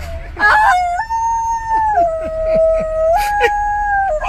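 A woman's voice howling like an animal in long, high held notes that step down and then back up in pitch.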